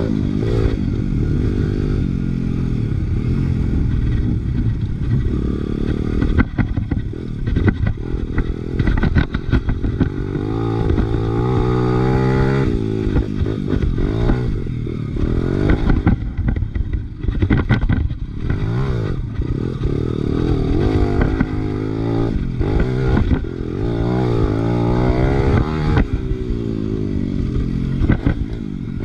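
Big-bore Honda XR100R pit bike's single-cylinder four-stroke engine being ridden hard, its pitch climbing and dropping again and again as it revs up and falls back. Short clattering knocks come through in a few spots, about a quarter of the way in and again a little past the middle.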